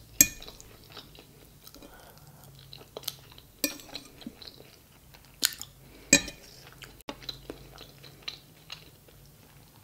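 Chewing a mouthful of fried egg, with small wet mouth sounds and a few sharp clinks of a metal fork against a ceramic plate, the loudest about a quarter second in.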